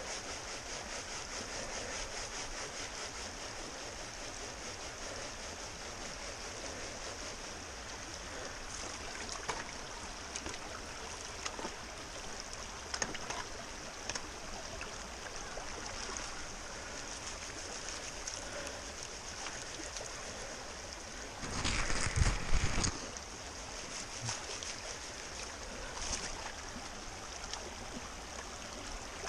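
Shallow creek running over rocks, with a plastic gold pan being washed in the current and small clicks of gravel in it. A louder burst of noise lasts about a second roughly three-quarters of the way through.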